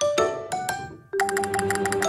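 Background music of struck, ringing notes: a few single notes that die away, then about halfway a quick run of repeated notes over a held lower note.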